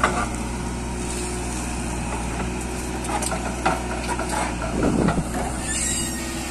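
JCB 3DX backhoe loader's diesel engine running steadily while the backhoe works, with scattered knocks and a brief rushing burst about five seconds in as the bucket empties soil into the tractor trailer.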